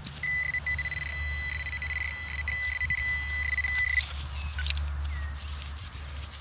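Garrett pinpointer sounding a steady high-pitched buzzing tone for about four seconds, then cutting off. The tone means there is metal close to its tip in the loose soil.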